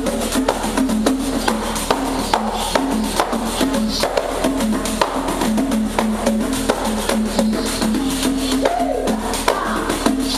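Two pandeiros played together in a fast Brazilian rhythm: a dense run of jingle rattles, sharp slaps and deeper strokes on the drum heads, with clog dance steps tapping along.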